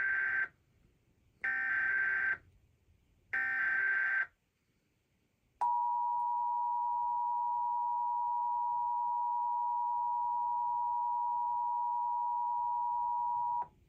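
Emergency Alert System SAME header: three bursts of shrill warbling data tones, about a second each, then the EAS attention signal, a steady two-tone alarm held for about eight seconds, opening a Required Monthly Test.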